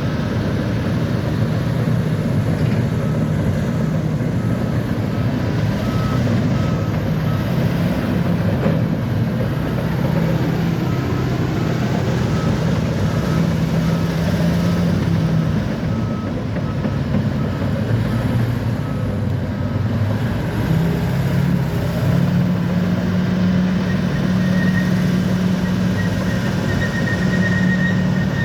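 Bulldozer's diesel engine running steadily while its reverse alarm beeps over and over, stopping a little past halfway. A thin high tone comes in near the end.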